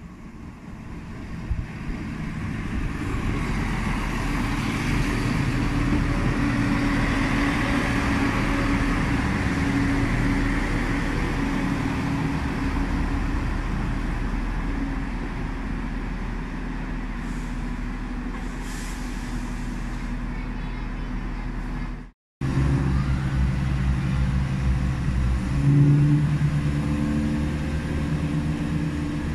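Greater Anglia Class 170 Turbostar diesel multiple unit running along the platform: its engines and wheels on the rails swell over the first few seconds, then hold steady. A brief dropout about two-thirds through, then the diesel engines hum steadily and their note steps up shortly after as the unit pulls away.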